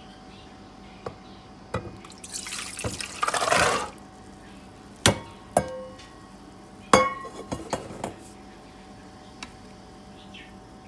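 Soaked red kidney beans and their soaking water poured from a stainless steel bowl into an electric pressure cooker's inner pot: a rush of water and tumbling beans for about two seconds, then several sharp metallic clinks that ring briefly as the bowl knocks against the pot.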